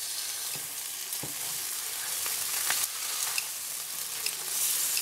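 Bone-in pork chops sizzling steadily as they sear in butter in a hot skillet, with a few light clicks as metal tongs turn them over.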